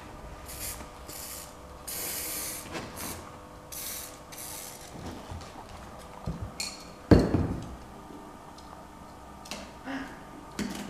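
Aerosol spray paint can hissing in several short bursts, the longest about two seconds long, sprayed through a paper stencil. A loud thump about seven seconds in, then paper rustling.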